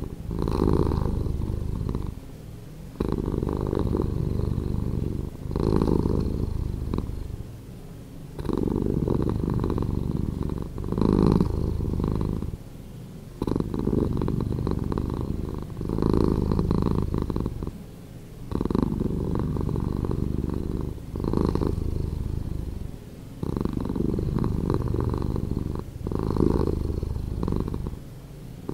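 Domestic cat purring, slowed down, low in pitch and pulsing in a steady cycle of swells about every two seconds with brief dips between.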